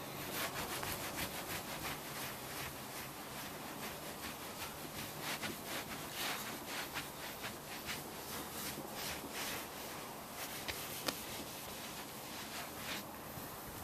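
Quick, repeated scraping strokes on windscreen glass during a chip repair, a few strokes a second, stopping near the end.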